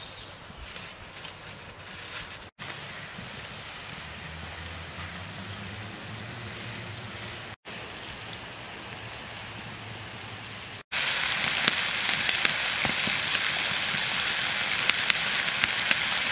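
Steaks frying in a cast iron skillet over a wood fire: a steady sizzle with sharp pops and crackles, loud after a cut about eleven seconds in. The earlier stretches are much quieter, with a low hum under them.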